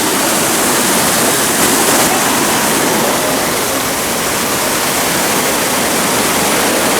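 Shaki waterfall crashing, a loud, steady roar of falling water.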